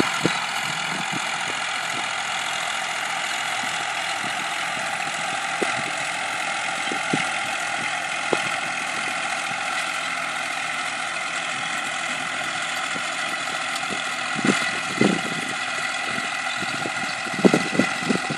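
Tractor engines running steadily, heard across an open field. A few short low bumps near the end.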